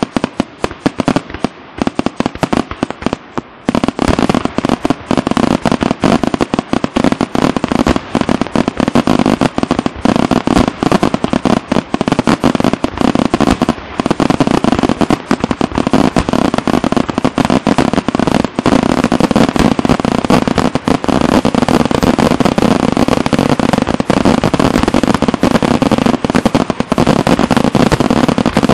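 Aerial fireworks shells bursting in rapid succession, with crackling. The bangs come separately at first, then thicken about four seconds in into a near-continuous barrage.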